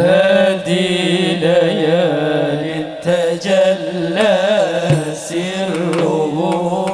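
A man singing an Arabic sholawat, a devotional song in praise of the Prophet, through a microphone, holding long wavering notes with melismatic ornaments. The voice comes in suddenly at the start.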